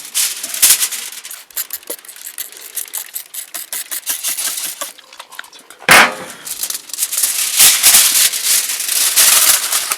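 Aluminium foil crinkling and rustling as racks of ribs are laid into it, a dense irregular crackle that gets louder from about six seconds in.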